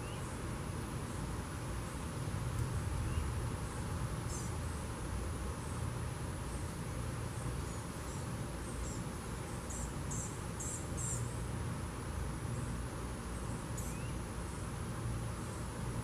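Insects trilling in a steady high-pitched drone, with short high chirps recurring every second or so and a quick cluster of them about ten to eleven seconds in. A low rumble runs underneath.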